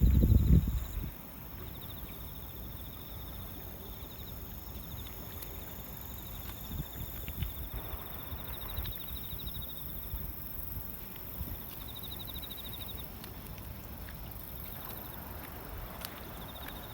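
Wind buffeting the microphone for about the first second, then a steady low wind rumble. Over it, high, evenly pulsed trills repeat on and off.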